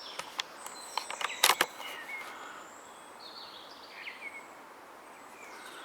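A few sharp clicks and knocks, the loudest a pair about a second and a half in, followed by small birds chirping.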